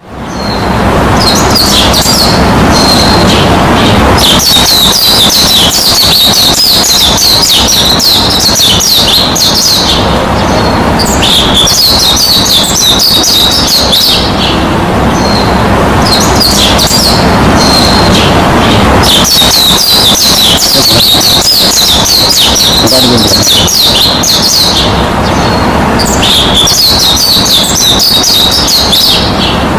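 Birds chirping and twittering in long dense stretches with short breaks between them, over a steady low background noise. The sound fades in over the first second.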